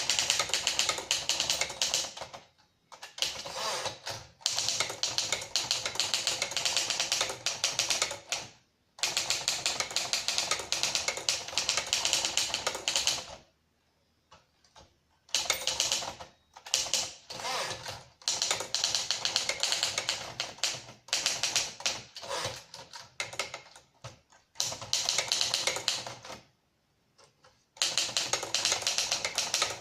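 A 1956 Remington Travel-Riter portable manual typewriter being typed on: fast runs of key strikes lasting several seconds, broken by a few short pauses.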